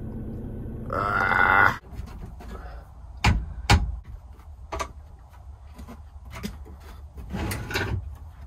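A short strained voice sound about a second in, then sharp metallic clicks and knocks, two loud ones close together, from the campervan's swivel seat base as a pulled-out lever is worked back into place by hand.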